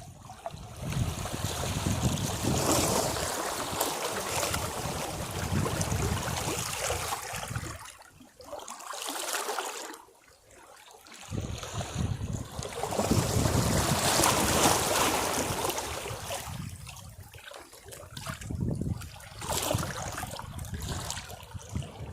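Caribbean Sea waves washing against rocks: surges of rushing, splashing water that swell and recede, with a quiet lull between surges about halfway through.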